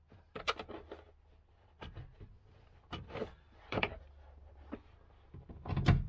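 Scattered light metal clicks and clacks: a socket on a cordless impact driver being worked onto a seat belt anchor bolt by hand, with the belt's metal anchor hardware knocking.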